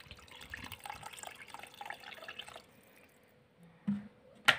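Water poured from a plastic jug splashing onto washed basmati rice in a bowl, setting the rice to soak. The pouring runs for about two and a half seconds and then stops; a short sharp click comes near the end.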